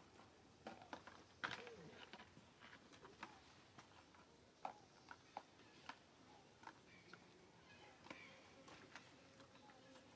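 Near silence, broken by scattered faint clicks and soft ticks, the sharpest about a second and a half in.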